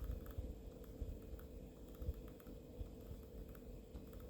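Faint, irregular clicking of a computer mouse over a steady low hum.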